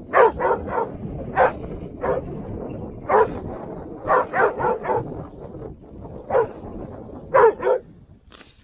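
Small dog barking repeatedly in short, sharp barks, some in quick runs of three or four and some spaced a second or more apart, excited by the arctic char landed on the ice.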